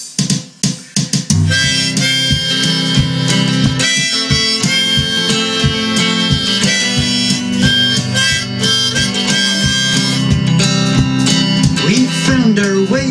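Harmonica played on a neck rack over a strummed acoustic guitar: the instrumental intro of a folk song. A few guitar strums open it, then about a second and a half in the harmonica comes in with long held notes over the steady strumming.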